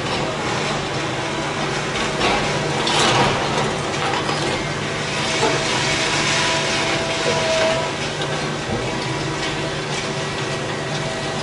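Long-reach demolition excavator running steadily while its attachment crunches and tears into the building's roof structure, with timber and rubble creaking and breaking. The crunching surges a couple of times, and a thin whine is heard for a few seconds midway.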